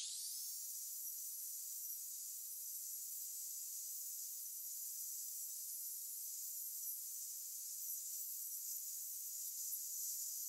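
Angle grinder with a wire-brush wheel running at full speed, a steady high-pitched whine, as the wire brush polishes a hand-forged steel flower.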